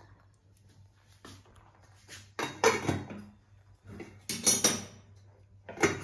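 A metal container knocking and clinking against the inside of a pressure cooker as it is set down in it: several separate bursts of short clatters, the loudest in the second half.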